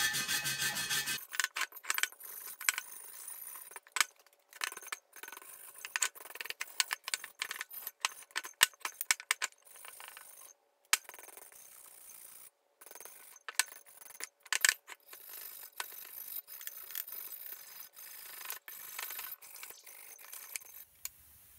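Hand wire brush scrubbing paint that has been softened by stripper off the bare cast-iron head of an Atlas 73 drill press. There is a dense, fast scrubbing for about the first second, then irregular quieter strokes with short pauses.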